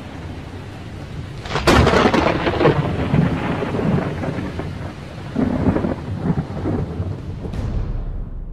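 Thunderstorm: a sharp thunderclap about two seconds in, then rolling rumbles over a steady hiss of rain, growing duller and fading near the end.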